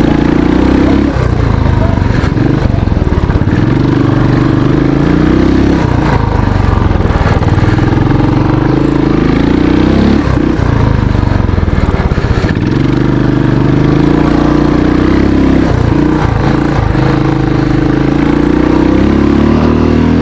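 Royal Enfield motorcycle engine revving hard under full acceleration up a dirt hill climb. Its pitch climbs and then drops back at each gear change, several times over.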